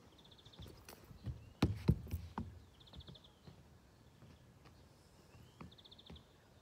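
A bird repeating a short call three times, a rising note then a quick high trill, with soft knocks and scuffs of someone moving on concrete, loudest about two seconds in.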